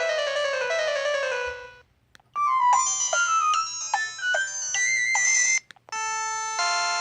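Old LG flip phone playing its built-in ringtones one after another through its small speaker. A falling run of electronic notes ends, then after a short pause a different melody of short beeping notes plays. Near the end a third tone begins, with held chords.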